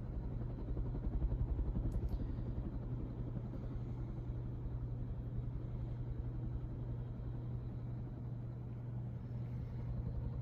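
1987 NuTone Slimline 52-inch ceiling fan running at high speed: a steady motor hum with a low rumble of moving air and a slight hiss from the fan, which the owner calls nothing too big.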